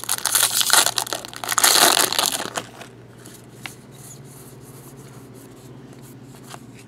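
Foil wrapper of a trading-card pack crinkling loudly as the pack is opened and handled, stopping about two and a half seconds in. Then the cards are leafed through quietly, with a few faint clicks.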